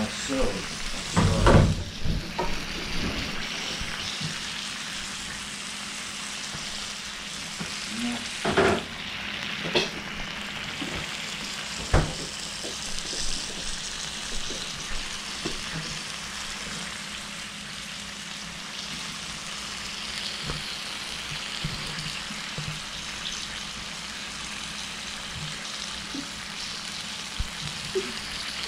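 Beer sizzling and steaming on the hot plate of a George Foreman electric grill under whole lobsters: a steady frying hiss. A few sharp knocks come in the first dozen seconds.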